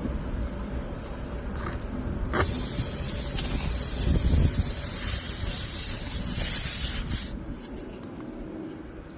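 Air hissing loudly and steadily at the tire for about five seconds. It starts suddenly a couple of seconds in and cuts off.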